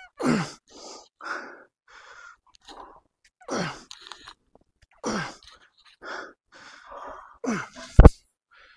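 A man grunting and breathing hard through strained pull-up reps taken to failure: four loud grunts that fall in pitch, with quick gasping breaths between them. About eight seconds in, a sharp loud thud as he drops from the bar.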